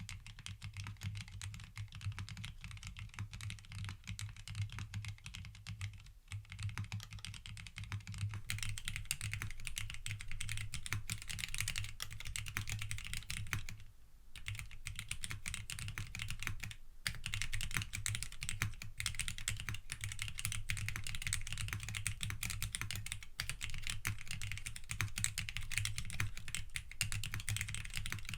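Continuous typing on a custom mechanical keyboard with TTC Titan Heart factory-lubed linear switches on an FR4 plate, with PBT keycaps and no foam: a steady stream of low-pitched, fairly quiet keystroke clacks, broken by two brief pauses in the second half.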